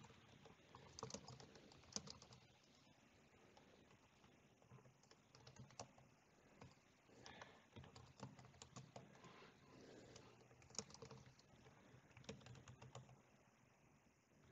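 Faint typing on a computer keyboard: irregular bursts of keystrokes with short pauses between them.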